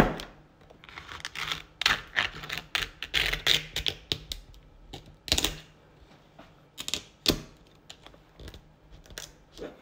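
Japanese kitchen knife cutting through the shell of steamed snow crab legs on a wooden cutting board: a run of crisp crackles and clicks, densest in the first few seconds, with a few sharper snaps later on.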